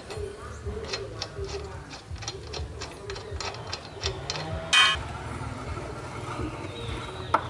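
Ratcheting wrench clicking as it turns the bolt on a motorcycle's rear shock absorber mount, a quick run of clicks, then one loud ringing metal clink a little before the five-second mark.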